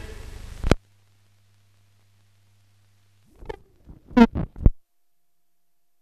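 The tail of the newsreel's closing music, cut off abruptly with a click under a second in. A faint low hum follows, then a brief cluster of short pops and thumps about three and a half to five seconds in.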